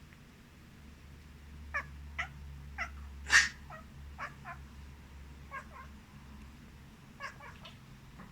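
A pet cat woken by a sneeze makes about a dozen short meows and chirps in small groups. Its loudest, harshest sound comes a little over three seconds in. A low rumble sits under the first part.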